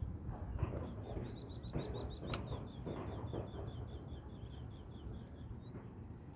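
A small bird calling in a fast, even series of short high chirps, about five a second, lasting several seconds, over low wind rumble on the microphone. A few soft knocks and one sharp click sound early on.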